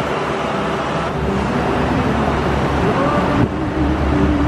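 Passenger boat's engine running with a steady low rumble.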